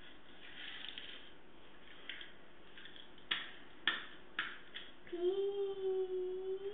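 A few light clicks of small die-cast toy cars being handled, then a young child's voice holding one long, steady note for about a second and a half near the end.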